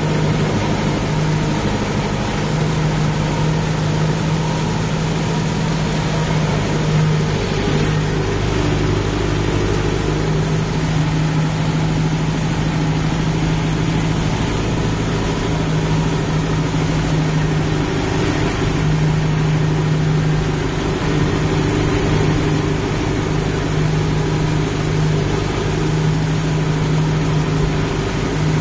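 Kubota MU5502 tractor's four-cylinder diesel engine running steadily under load, driving a rotavator through flooded paddy mud.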